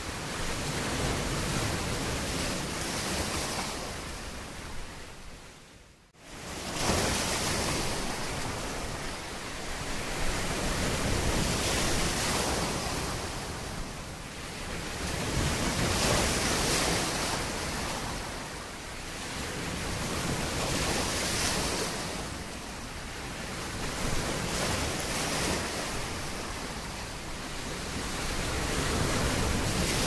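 Sea waves washing in, a rushing sound that swells and eases every four to five seconds. About six seconds in it fades almost away, then cuts straight back in.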